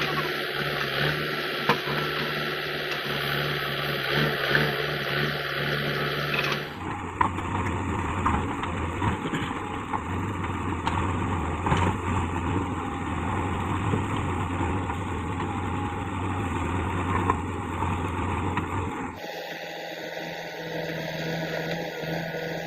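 JCB 3DX backhoe loader's diesel engine running steadily under work, with scattered short knocks. The sound changes abruptly twice, about 7 and 19 seconds in, as the shots cut.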